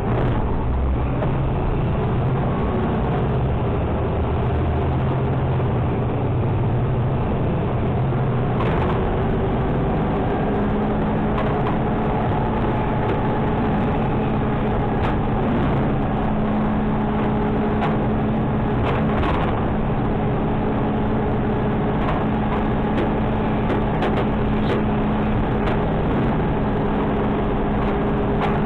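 Automated side-loader garbage truck running as it drives, heard from inside its hopper. A steady hum comes in about ten seconds in, and short knocks and rattles come now and then.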